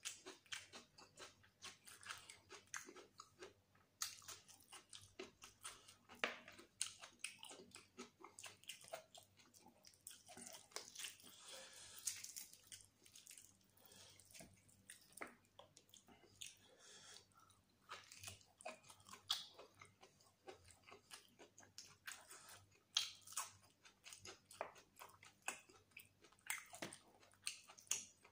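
Close-miked eating of mutton biryani and curry by hand: a steady run of irregular wet chewing, lip smacks and biting clicks. Crisp crunches of raw cucumber slices are mixed in.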